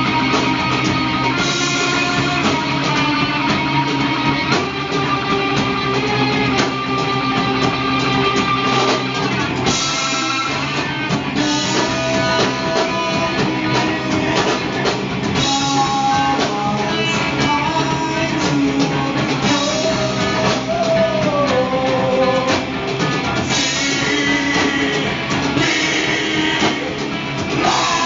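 Loud live rock music from a band playing electric guitars, bass guitar and a drum kit.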